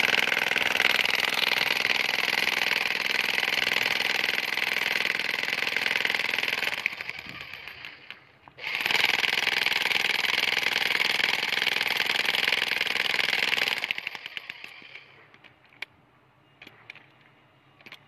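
Corded electric demolition hammer chiselling into hard rock in the ground. It runs in two long stretches, stopping about seven seconds in and starting again about a second later, then winds down about fourteen seconds in, leaving only a few light knocks.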